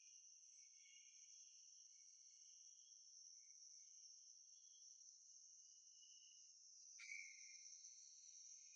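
Near silence: only a faint, steady high-pitched chirring, with a single click about seven seconds in.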